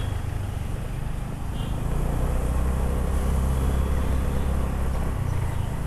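Motor scooter engine running at low speed while rolling slowly, a steady low buzz that changes pitch slightly about five seconds in.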